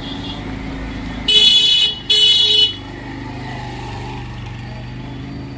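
A vehicle horn honks twice in quick succession, each blast a little over half a second long, over steady street traffic noise with a low engine hum.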